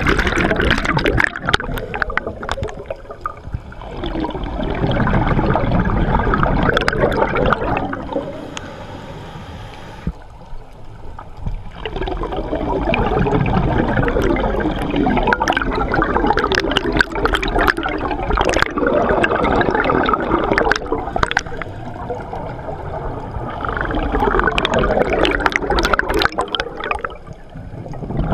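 Scuba diver breathing through a regulator, heard underwater: three long gurgling rushes of exhaled bubbles, with quieter inhalations between them.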